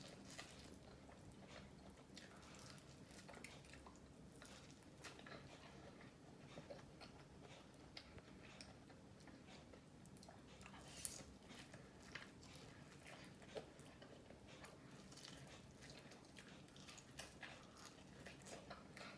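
Faint chewing and biting of corn: many small crackly clicks of a mouth eating, with a louder click about halfway through.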